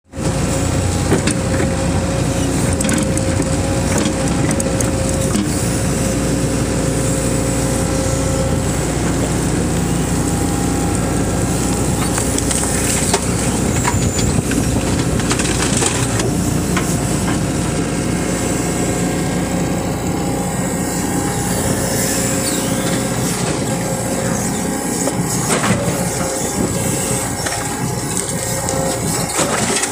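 Tata Hitachi excavator's diesel engine running steadily under digging load, with a steady whine over it and scattered knocks and clatter as soil and stones are scooped and dumped into a tractor trailer.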